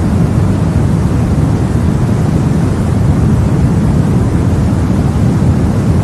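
Steady, deep rushing noise of a sleep white-noise track, even and unchanging, heaviest in the low range with little hiss on top.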